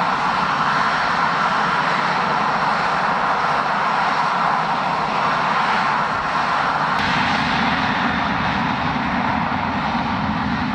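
Jet airliner engines running with a loud, steady noise. The low rumble grows stronger about seven seconds in.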